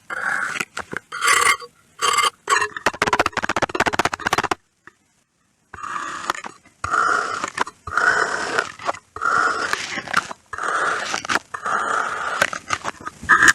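Crunchy kinetic sand being cut, a series of crackling crunches about half a second to a second each, with a brief silent pause about four and a half seconds in.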